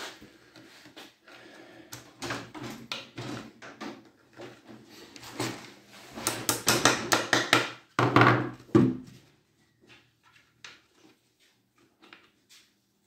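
Hammer knocking wooden dowels into a pine drawer panel: a run of sharp wooden knocks, quickest and loudest about six to eight seconds in, followed by a few light clicks of the wood being handled.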